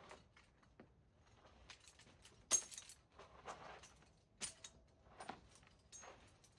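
Metal climbing gear clinking and jangling, such as carabiners and cams on a rack, in scattered sharp clicks with a light ring. The sharpest clink comes about two and a half seconds in, with softer rustling in between.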